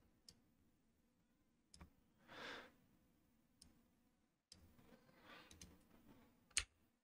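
A handful of faint computer mouse clicks, spaced a second or two apart, the loudest near the end, over near silence.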